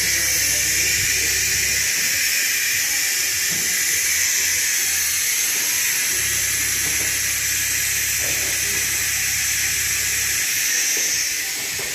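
Steady hiss of compressed air running a vacuum coolant-filling tool fitted to the engine's coolant expansion tank, with a low hum coming and going underneath. The hiss eases near the end.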